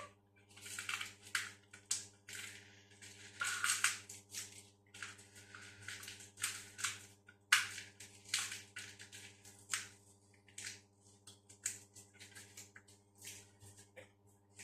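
Packaging being handled and pulled off a boxed door closer: irregular crinkling and rustling in many short bursts, over a faint steady hum.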